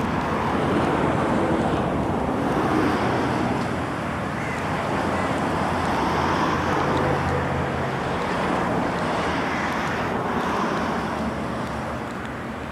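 Steady wind rushing over the microphone on a moving car ferry, with the ship's engines giving a low, even drone underneath.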